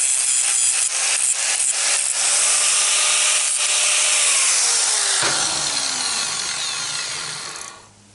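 Angle grinder with a cutting wheel slicing through 10 mm steel rod clamped in a vise, a loud steady hiss of cutting. Over the last few seconds the motor's pitch falls and the sound dies away as the grinder winds down.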